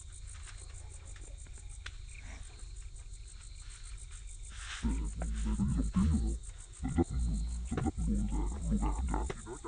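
Crickets chirping steadily in an even, fast pulse, with low muffled knocks and rustling from about halfway in.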